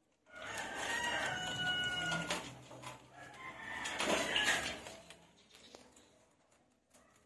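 Rooster crowing.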